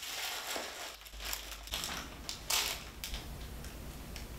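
Crinkling of the plastic wrapper on a Little Debbie Cosmic Brownie as it is handled and opened, in irregular crackly bursts.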